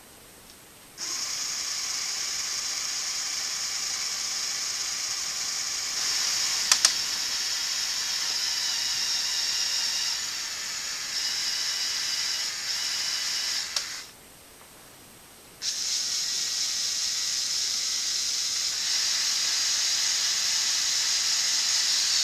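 LEGO Technic Power Functions medium motors and their gear trains running, a steady high-pitched whirring whine. It stops for about a second and a half about two-thirds through, then starts again.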